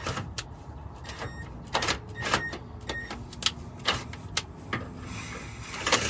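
Irregular sharp metallic clicks and clinks of tools and parts being handled, some ringing briefly, over a steady low hum. About five seconds in, a steady hissing whir starts and grows louder.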